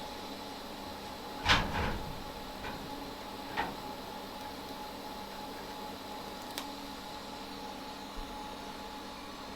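A steady hum with faint held tones, broken by a sharp knock about a second and a half in and two smaller knocks later.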